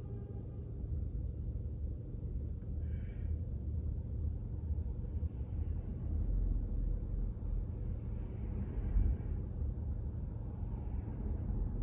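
Low, steady rumble of traffic and an idling car, heard from inside the cabin of a car stopped in a queue.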